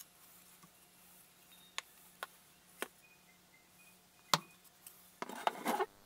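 Sharp clicks and knocks of wooden wing pieces and plastic spring clamps being handled on a workbench while the wings are glued and clamped: a few single clicks, the loudest about four seconds in, then a quick clatter of clicks near the end.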